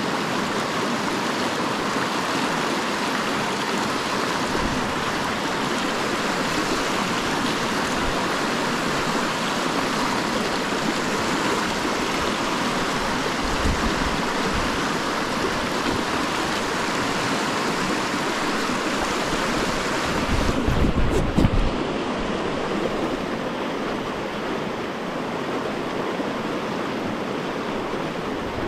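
Fast river rapids rushing over a rocky bed in a steady wash of water noise. About twenty seconds in come a few seconds of low bumps and buffeting on the microphone.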